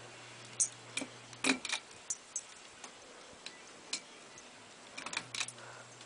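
Westinghouse Casanova 42-inch ceiling fan running, with irregular sharp ticks and clicks throughout and a cluster of them near the end. A steady low hum cuts out about a second and a half in, at a loud click, and comes back near the end.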